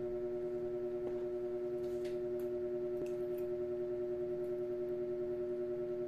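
A steady machine-like hum made of several fixed pitches, with a slight regular pulse. A few faint light clicks of a metal spoon against plastic food containers come about two and three seconds in.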